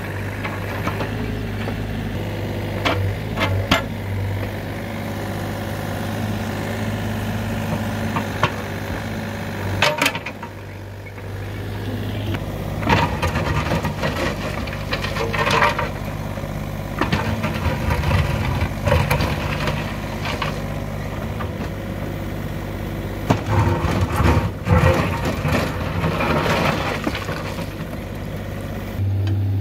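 Kobelco mini excavator's diesel engine running steadily while its bucket scrapes and moves gravel and rock, with repeated knocks and clatters that come thicker in the second half.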